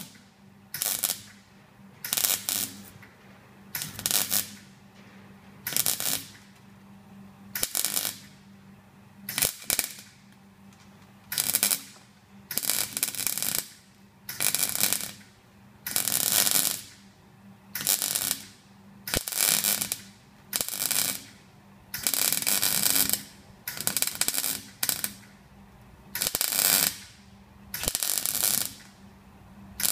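Snap-on MIG welder stitch-welding a broken exhaust bracket: about twenty short bursts of arc, each half a second to a second long and spaced about a second apart, with a few longer runs, over a low steady hum between bursts.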